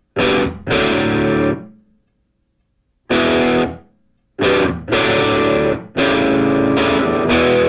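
Music: distorted electric guitar playing loud chord hits, each ringing for about a second and then stopping, with a silent gap of about a second after the first two.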